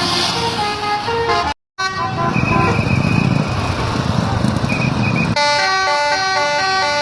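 Bus telolet horn playing a tune of short, stepped notes, cut by a brief dropout about one and a half seconds in. A low rumble of the bus engine and street fills the middle, then about five seconds in the telolet tune returns loudly, its notes changing in a steady rhythm.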